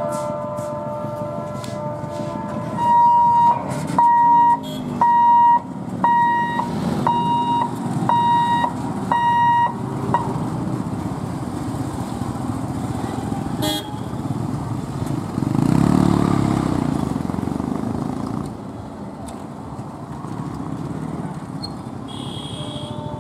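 Motorcycles and other road vehicles crossing a railway level crossing. A horn beeps in a regular pattern, about once a second, eight times over several seconds. A motorcycle engine passes close about two-thirds of the way through.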